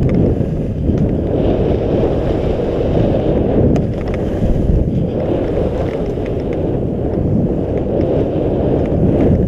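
Wind buffeting an action camera's microphone during a fast downhill run on a ski slope, a loud, steady low rumble.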